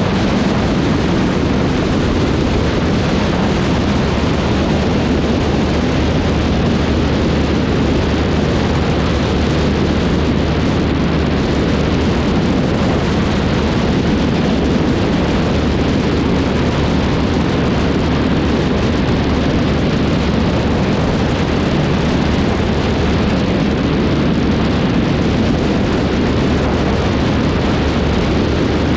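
Steady wind rush buffeting the wing-mounted camera's microphone of a Cessna 152, with the light plane's piston engine droning underneath.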